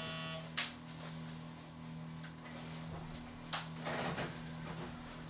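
Steady electrical hum aboard a JR Central 373 series electric train, with a short buzzing tone that stops about half a second in, then a sharp clunk and a few lighter clicks, and a brief rustling hiss a little before the end.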